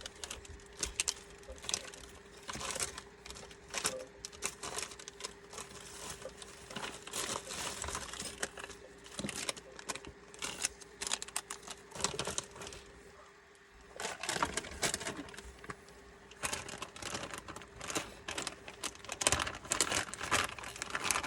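Irregular small clicks, taps and scrapes from hands working the small metal and plastic parts of an airsoft rifle's mechanism block to free a part, with a brief lull partway through. A faint steady hum runs underneath.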